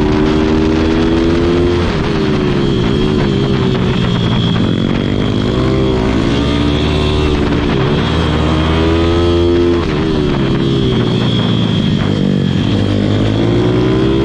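Pit bike's single-cylinder engine, heard from onboard, revving up and down through the corners. The revs climb and drop off about two seconds in, build again and fall away near ten seconds, then climb once more near the end.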